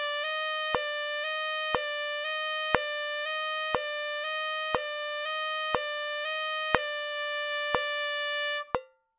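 Tenor saxophone playing a high palm-key exercise: quick alternating high notes, then one held note that stops near the end. A metronome clicks once a second throughout.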